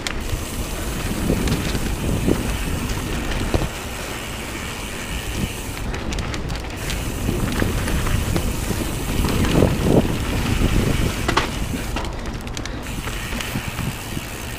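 Mountain bike riding fast down a dirt trail: tyres rumbling over the ground and the bike rattling, with sharp knocks over bumps and roots, under continuous wind buffeting on the microphone.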